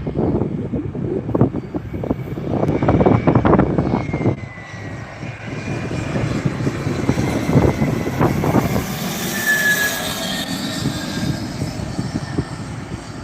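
A landing airplane's engines passing, with a high whine that slides in pitch, strongest in the second half. Gusts of wind buffet the microphone throughout.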